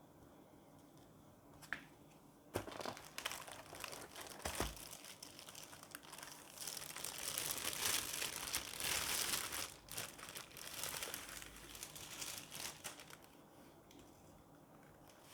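Crinkly packaging being handled and unwrapped during a keyboard unboxing: a single click, then a long run of crinkling and rustling that starts about two and a half seconds in, is busiest in the middle and dies down near the end.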